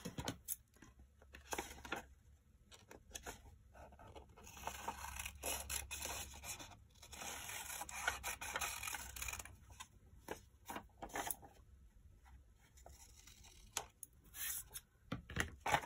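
Scissors cutting through printed book-page paper in a series of short snips, with paper scraping and rustling as the page is turned between cuts.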